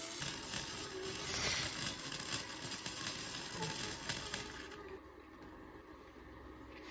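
Arc welder running a weld bead on the steel clothesline post, a steady crackling hiss that cuts off about four and a half seconds in as the arc is broken, leaving a faint low hum.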